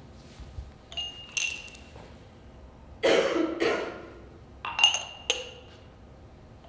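Drinking glasses clinking and ringing as they are set down and knocked together: two clinks a little after a second in, then three more near the end. In the middle there is a louder rushing, scraping noise lasting about a second.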